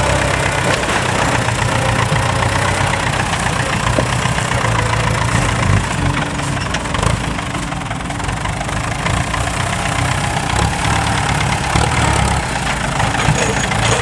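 Large diesel engine running steadily at a low, even rumble.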